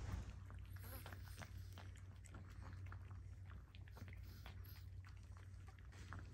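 Small Chihuahua licking and lapping whipped cream off a leather couch: faint, quick wet smacks and tongue clicks, over a steady low hum.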